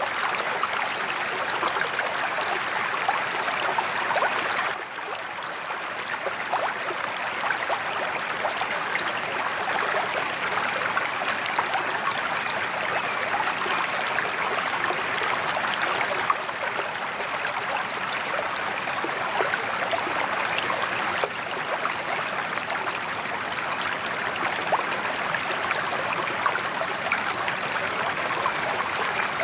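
Water from a spillway waterfall pouring steadily into a koi pond, a continuous splashing rush.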